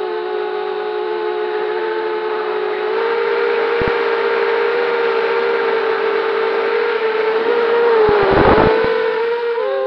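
Vortex 285 racing quadcopter's brushless motors and propellers whining steadily on a 4S battery, picked up by the onboard camera, the pitch stepping up slightly about three seconds in. Near the end a short burst of low rumble and crackle, the loudest moment, rides over the whine.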